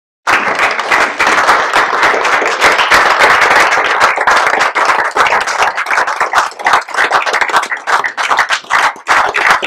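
A roomful of people applauding, many hands clapping in a dense, loud patter that cuts in abruptly about a quarter second in.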